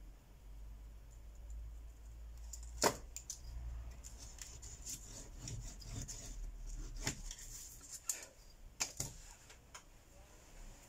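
Irregular small clicks, taps and light scraping as a smartphone's bare mid-frame and a small repair tool are handled on a work table. The loudest tap comes about three seconds in, with a cluster of clicks near the end. A low hum runs underneath.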